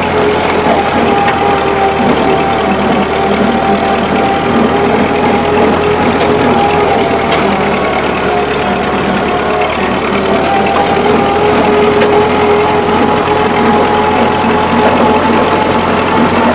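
Old farm tractor engine running steadily while mowing, with a steady whine that sags slightly in pitch and recovers.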